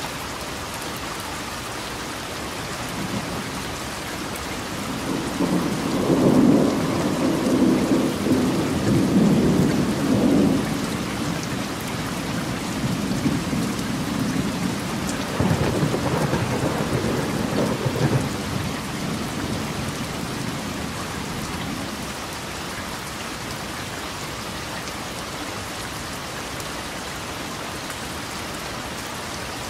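Steady rain with two long rolls of thunder: the first builds from about three seconds in and is loudest a few seconds later, the second comes around the middle, and both have died away by about three-quarters of the way through.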